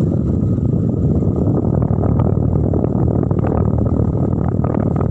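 Steady drone of a motorboat engine running at speed, mixed with the rush of water.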